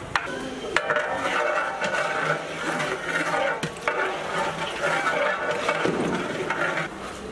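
A long metal ladle stirring and scraping beef curry in a large aluminium cooking pot, with occasional sharp clinks and knocks.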